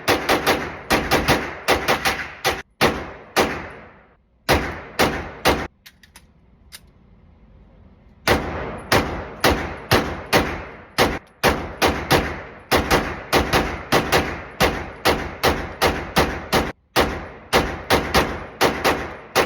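Gunfire: a long string of rapid single shots, about two a second, each with a short ringing tail. The shots break off for about two quiet seconds near the middle.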